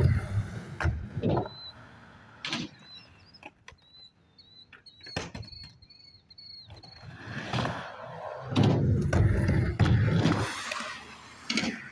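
Skateboard wheels rolling over sheet-metal ramps, a loud rumble from about two-thirds of the way in, with sharp clacks of the board before it and again near the end.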